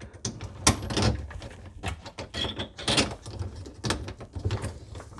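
Irregular plastic clicks and small knocks from the drain saddle clamp of a reverse osmosis wastewater line being handled and its screw and nut tightened by hand on a PVC sink drain pipe.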